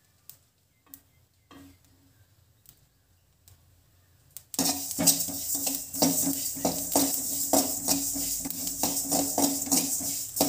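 Black sesame seeds dry-roasting in a hammered metal pan: a few sharp pops at first, then from about halfway a metal ladle stirs and scrapes the seeds around the pan in quick rhythmic strokes over a loud rustle and crackle of the popping seeds.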